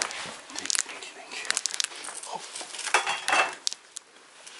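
A bag and gear being handled: rustling and crinkling, with scattered clicks and light clinks, and a denser burst of rustling about three seconds in.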